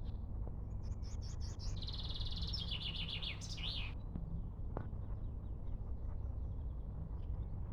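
A small songbird singing one phrase: a few clear high notes, then a fast trill ending in a short flourish, from about a second in to about four seconds in. A steady low rumble runs underneath, with a few faint chirps near the end.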